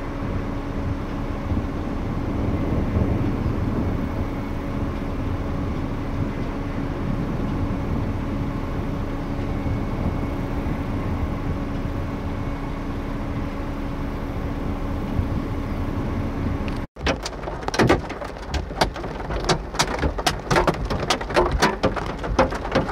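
A steady low rumble with a faint even hum. About seventeen seconds in, an abrupt cut leads to large hailstones clattering down: a dense run of sharp, irregular hits.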